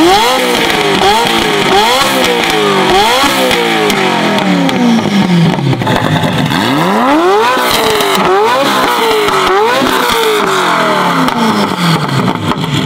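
Ferrari F40's twin-turbo V8 free-revving through a custom titanium exhaust: repeated throttle blips, each a quick rise in pitch that falls back, with one longer, higher rev about halfway through.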